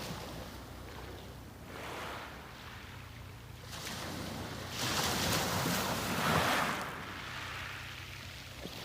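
Waves breaking and washing up a beach: a small wave about two seconds in, then a bigger one a little before the midpoint that swells and draws back, with a low steady rumble of surf underneath.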